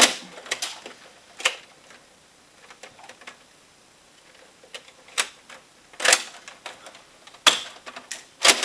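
Nerf foam-dart blasters being primed and fired: sharp plastic clacks that come irregularly, a couple near the start and several more in the second half, with a quiet spell in between.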